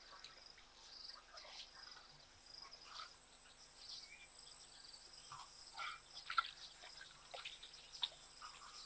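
Faint bush ambience: insects droning steadily at a high pitch, with scattered short bird chirps and a couple of brief sharp sounds about six and eight seconds in.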